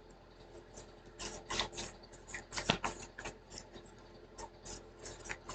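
A deck of cards being shuffled by hand: an irregular run of soft snaps and rustles.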